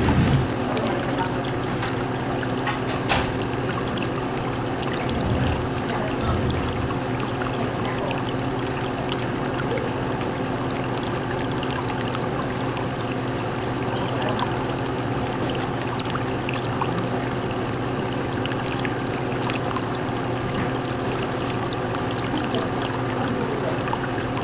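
Steady trickling and pouring of circulating aquarium water, with a low steady hum underneath and a few faint clicks.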